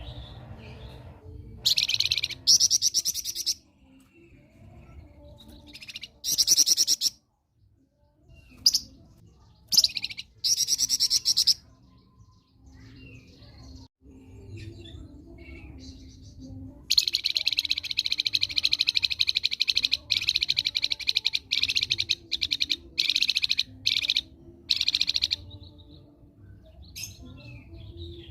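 A flamboyan songbird singing in loud, high, fast-trilled phrases: several short bursts of a second or two, then a long, almost unbroken trill of about eight seconds starting a little past the middle.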